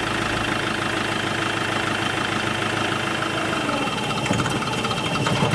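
Iveco Daily van's diesel engine idling steadily with its intake pipe squeezed shut, starved of air so that it smokes and shows up an exhaust leak at the EGR flange.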